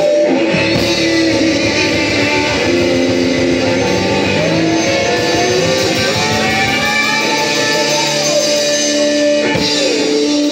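Live rock band playing an instrumental passage: electric guitars, bass guitar and drums, with a flute over the top.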